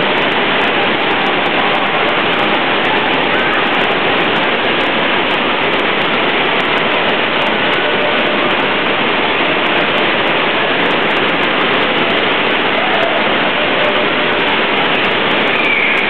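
Fast sheet of water rushing steadily up the sloped surface of a surf-simulator wave ride, a loud, even roar of water.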